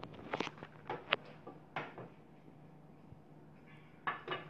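Spatula tapping and scraping against the bottom of a glass baking dish as set gelatin is cut into squares: a few light, irregular taps in the first two seconds and two more near the end.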